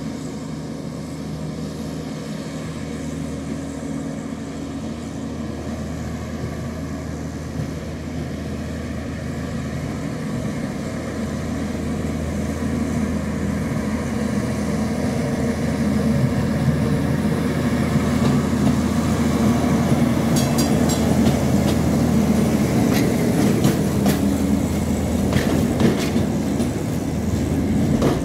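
Vintage tram approaching along the track and growing louder, with a steady low running hum. Wheels click over the rails in the last several seconds as it passes close.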